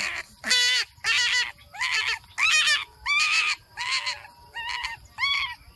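Rabbit screaming in distress while held after being caught in a snare: a string of about eight short, high-pitched cries, each rising and then falling in pitch, coming roughly one every two-thirds of a second.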